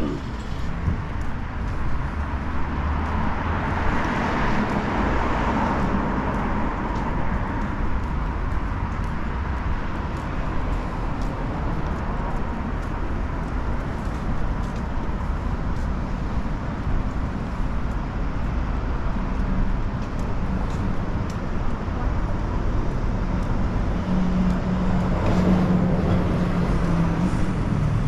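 Road traffic on a street: a steady rumble with a vehicle passing about four seconds in, and another engine going by near the end.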